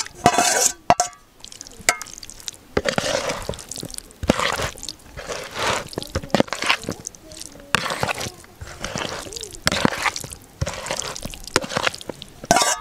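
A spoon mixing thick minced-meat gravy into diced boiled potatoes in a bowl: repeated wet squelching and scraping strokes, with a few sharp spoon knocks near the start.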